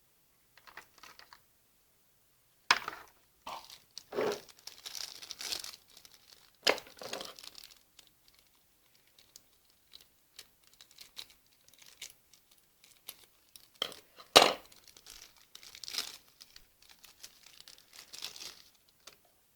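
Product packaging being handled: crinkling and rustling with irregular sharp clicks and snaps, the loudest snap about three quarters of the way through.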